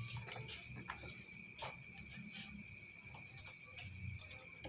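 Insect chirping in the background: a steady high-pitched pulsed trill at about five pulses a second, over a steady thin high tone, with a few faint clicks.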